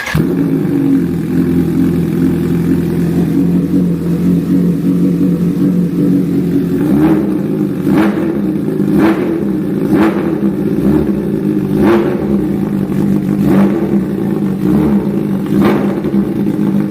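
Bimota Tesi H2's supercharged Kawasaki inline-four running just after start-up through its open titanium exhaust with the dB killer left out, very loud. There are short sharp cracks about once a second in the second half.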